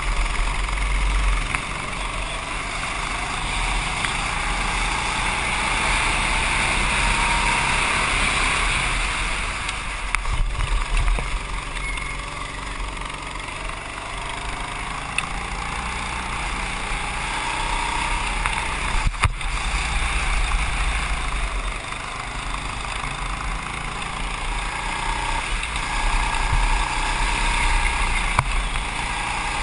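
Go-kart engine running at speed, heard from on board the kart, its pitch rising and falling as the kart speeds up and slows. A sharp knock is heard about two-thirds of the way through.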